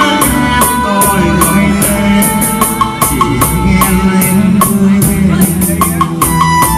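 Amplified live music: a man singing into a microphone over electronic keyboard backing with a steady drum beat.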